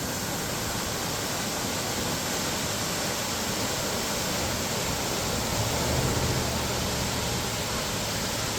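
Horsetail Falls pouring into its pool, a steady even rush of falling water. A faint low hum rises and fades about six seconds in.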